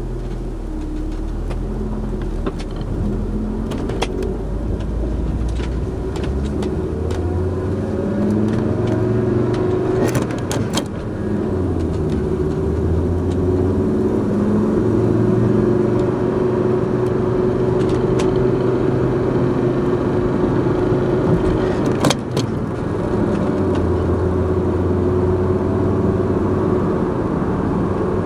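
Car driving, heard from inside the cabin: steady engine hum and tyre noise, the engine pitch rising and stepping as the car speeds up and changes speed. A few sharp knocks break through, the loudest about ten seconds in and again about twenty-two seconds in.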